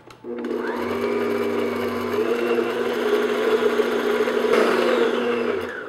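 Electric stand mixer motor beating butter, sugar and oil with its paddle on medium-high speed. It spins up with a short rising whine just after the start, runs steadily, and stops just before the end.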